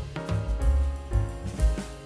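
Background music with a drum beat under pitched instruments.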